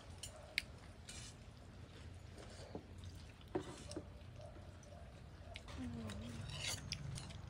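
Quiet mealtime sounds: scattered sharp clicks of eating utensils against bowls, with faint low voices and a steady low hum underneath.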